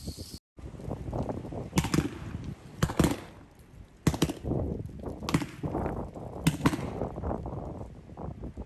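Gusty wind rumbling on the microphone, broken by about eight sharp bangs or knocks, some in quick pairs.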